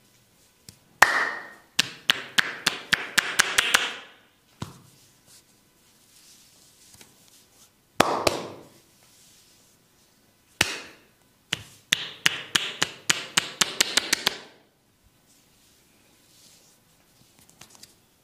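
Massage tapotement: the barber's hands striking the body in rapid percussive chopping strokes. It comes in two runs that speed up to about five or six strikes a second, with a couple of single slaps between them.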